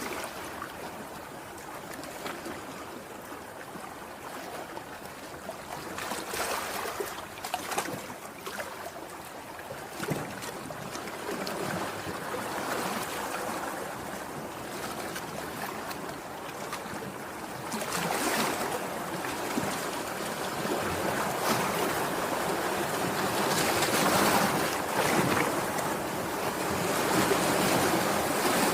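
Sea waves breaking and washing on the shore: a steady rush of surf that swells louder as each wave breaks, the surges growing stronger in the second half.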